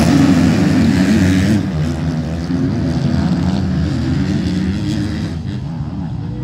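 Several motocross dirt bike engines run hard together as a pack, their pitches rising and falling as the riders rev and shift. A little under two seconds in, the sound drops as the bikes move away, leaving a steady, more distant chorus of engines.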